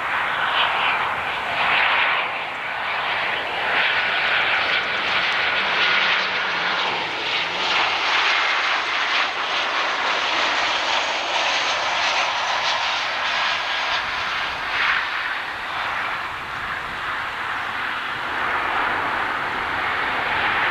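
Boeing 737-800's CFM56-7B jet engines running as the airliner lands and rolls out on the runway: a loud, steady rush of jet noise with a faint high whine in it.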